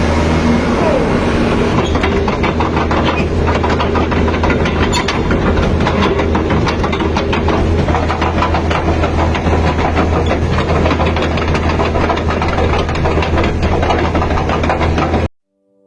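Hitachi Zaxis 120 hydraulic excavator working: its diesel engine runs steadily under a rapid metallic clatter, and the sound cuts off suddenly near the end.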